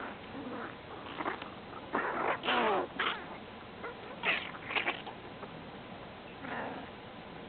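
A Golden Retriever's stomach and intestines gurgling loudly in a string of irregular rumbles and squeaks. The loudest comes about two to three seconds in, with a wavering pitch that falls, followed by a few more about four to five seconds in and one near the end. The owner takes these gut noises for ordinary indigestion.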